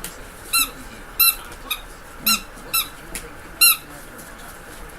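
A series of about seven short, high-pitched squeaks at irregular intervals over the first four seconds, each a brief arched note; the last is the loudest.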